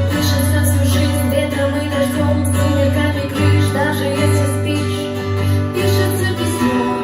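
Pop song playing: acoustic guitar strumming under a singing voice.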